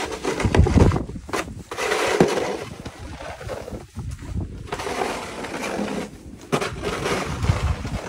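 Snow shovel scraping and crunching through snow in repeated strokes, with gusts of wind buffeting the microphone in deep rumbles.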